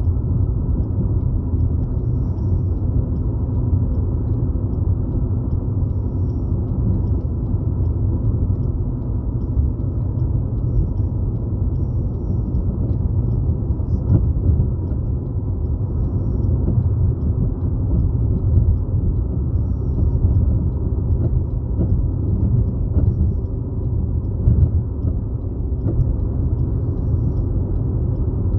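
Steady low rumble of road and engine noise inside a moving car at cruising speed.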